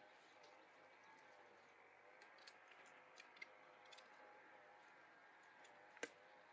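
Near silence with a faint background and a few soft clicks, and one sharper click near the end.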